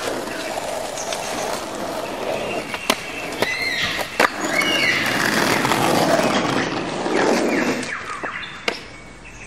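Skateboard wheels rolling over asphalt, with two sharp clacks of the board hitting the concrete curb about three and four seconds in. The rolling grows louder and then fades away near the end.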